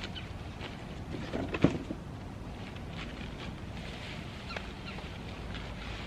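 Hands digging potatoes out of garden soil: a few short rustles and knocks about a second in, over a steady low rumble of breeze on the microphone. A faint short chirp comes near the end.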